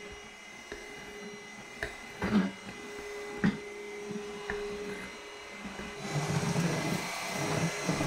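Moolan 22.2-volt cordless stick vacuum running with a steady motor whine and rushing air, with a few light knocks as it is moved along. The rushing noise grows louder about six seconds in.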